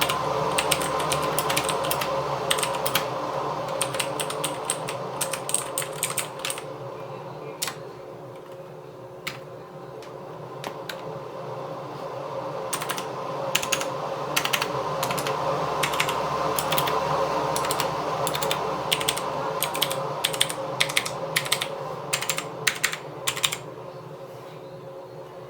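Typing on a Jane V2 mechanical keyboard with lubed Cherry MX Brown tactile switches: runs of quick keystrokes, thinning to a few scattered presses for several seconds in the middle. A steady hum runs underneath.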